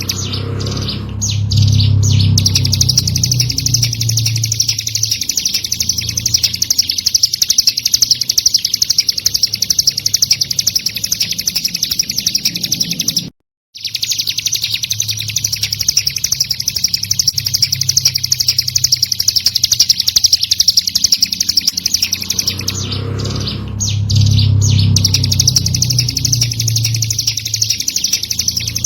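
Ciblek gunung singing a fast, unbroken run of high chirping notes, with a brief dropout about halfway through. A low rumble rises under it near the start and again near the end.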